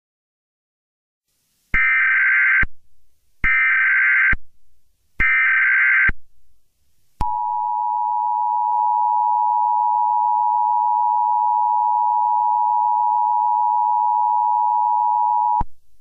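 Emergency Alert System SAME header: three short bursts of warbling digital data tones, each just under a second, then the long steady EAS attention tone, which runs about eight seconds and cuts off shortly before the end.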